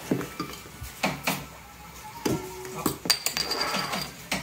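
Metal crown cap pried off a glass Heineken beer bottle with a bottle opener: clinks and knocks of the bottle and opener, then a sharp pop about three seconds in followed by a brief hiss of escaping gas.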